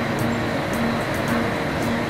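Background music with a steady beat, a light high tick about twice a second over a full, even mix.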